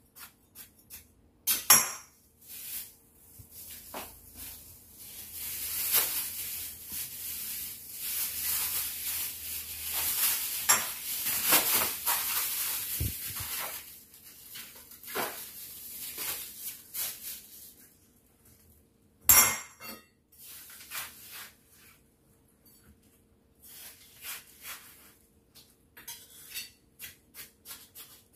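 Thin plastic bag crinkling for about ten seconds as watermelon slices are wrapped in it, between sharp knocks of a knife and pieces on a cutting board. In the last third, a run of short light taps as a knife cuts watermelon rind on the board.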